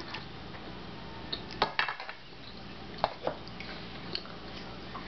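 Cutlery clinking against plates a few times, sharp light clicks in two small clusters, over a steady low room hum.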